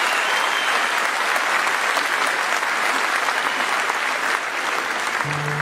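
A large concert audience applauding steadily. Near the end the band's music comes in with a held low note.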